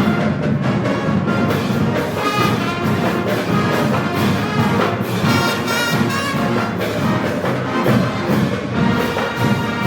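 Orchestral music with prominent brass playing loudly and continuously, the accompaniment for a dance routine.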